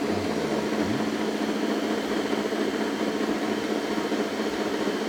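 Electric stand mixer's motor running steadily, its beaters kneading a flour-and-water dough in the bowl.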